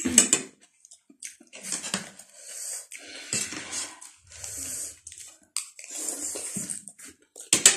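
Two people slurping and chewing spicy instant noodles close to the microphone, in several hissing slurps of about a second each. Short clicks of forks and chopsticks on the plates come in between, with a sharp one near the end.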